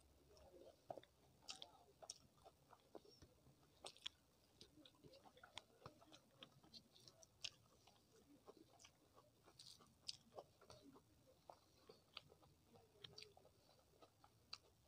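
Faint, close-up chewing and wet mouth sounds of a person eating rice and curry, with many small irregular clicks and smacks.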